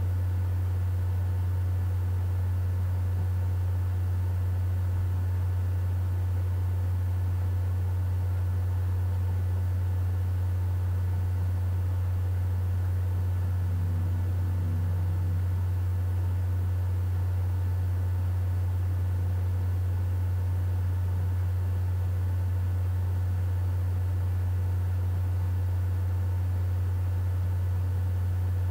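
Steady, loud low hum with a faint hiss over it, unchanging throughout, typical of background noise on a home webcam recording.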